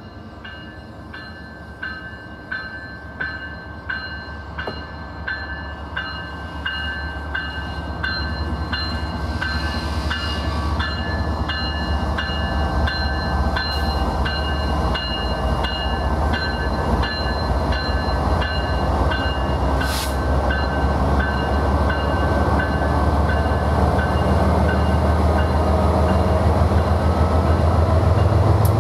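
Grade-crossing warning bell ringing about twice a second as a very slow BNSF manifest freight's diesel locomotives approach. Their low engine rumble grows steadily louder until it drowns the bell near the end as the lead units pass. A brief high hiss about two-thirds of the way through.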